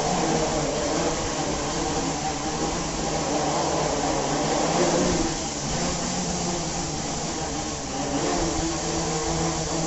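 Quadcopter's motors and propellers whirring steadily as it hovers low and lifts off, the pitch wavering up and down, loudest about five seconds in.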